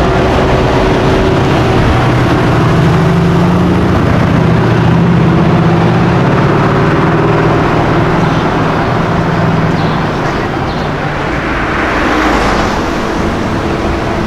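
A car engine running loud and low, its note holding and edging slightly up before fading after about ten seconds, then a brief swell of road noise near the end.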